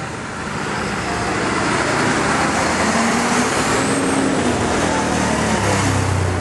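Fire engine driving past close by, its engine and tyres growing louder as it approaches and passes.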